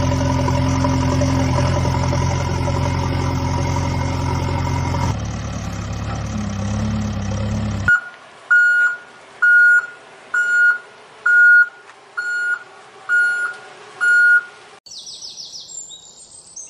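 A steady diesel engine running, its tone shifting about five seconds in. Then a reversing alarm beeps eight times at an even pace, followed by high bird chirps near the end.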